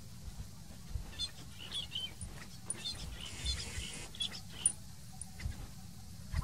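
Birds calling in scattered short chirps, with irregular low thumps underneath.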